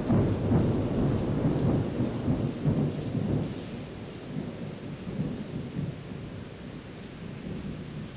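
Thunder rumbling over steady rain, loudest in the first few seconds and dying away after that.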